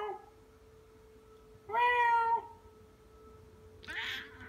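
Tuxedo cat meowing: the tail of one call at the very start, a single steady meow about two seconds in, and a short, rougher call near the end.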